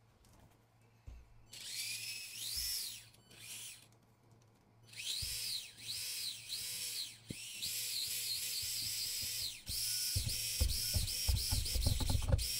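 Axial SCX24 mini crawler's small electric motor and geared drivetrain whining in throttle blips, the pitch rising and falling with each one and the blips coming quicker later on: a bench test spin after fitting new underdrive axle gears. Light knocks of the chassis being handled come in near the end.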